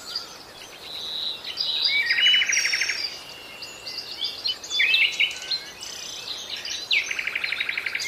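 Several caged finches chirping and whistling, with a buzzy trilled song phrase about two seconds in and another near the end.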